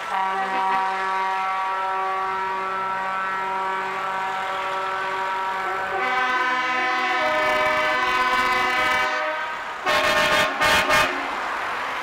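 Scania 143 V8 truck engine running as the truck pulls toward the listener, its note getting fuller and louder about six seconds in. About ten seconds in come a few short, loud horn blasts.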